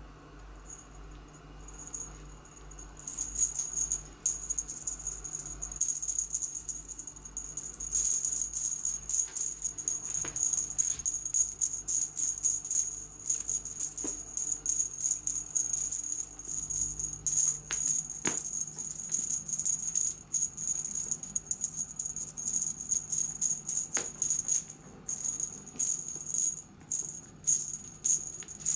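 Small metal bell on a cat's wand toy jingling and rattling rapidly as the toy is shaken and batted. The jingling starts a few seconds in and goes on with short pauses, with a few sharp clicks among it.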